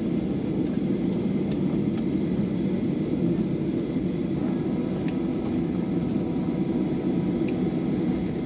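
Steady low cabin rumble of a Boeing 737-700 rolling on the ground after landing, with a few faint clicks.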